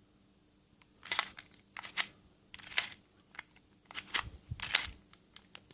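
Lockwood 355 deadlock mechanism being worked by hand: a run of sharp metallic clicks and clacks in small clusters, starting about a second in, as the lock is operated to test it after adjustment.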